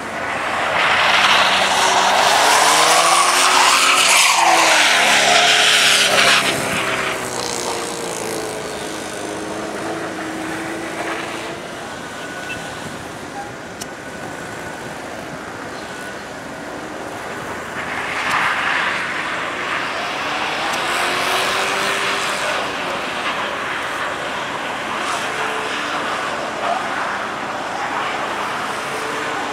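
Subaru car drifting on packed snow: the engine revs rise and fall while the tyres spin and slide on the snow. It is loudest for the first six seconds or so and again from about eighteen to twenty-three seconds.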